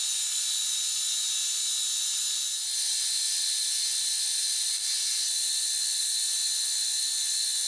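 Horizontal milling machine cutting into a steel train rail with a carbide-tipped cutter: a steady high hiss of the cut, with several steady whining tones over it.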